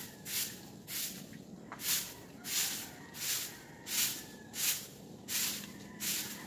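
Stiff broom sweeping a wet concrete yard strewn with fallen leaves and flowers: steady rhythmic swishes, about three strokes every two seconds.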